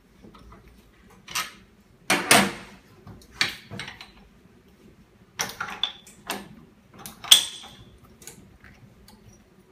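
The door and latch of the OCA laminator's de-bubbling pressure chamber being opened and handled. It makes a series of about eight sharp clicks and clunks, the loudest about two seconds in and just past seven seconds.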